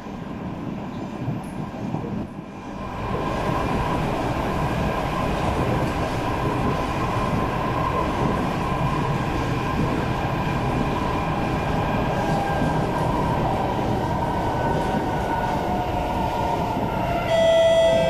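Inside a C751B metro train car under way: a steady rumble of wheels and running gear, with the whine of the traction motors, louder from about three seconds in. Over the last few seconds the whine sinks gently in pitch as the train slows. Near the end a sudden, louder ringing tone with many overtones cuts in.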